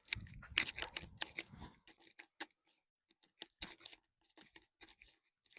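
Irregular dry crackling and scratching clicks, close to the microphone, dense for the first two seconds, then sparser.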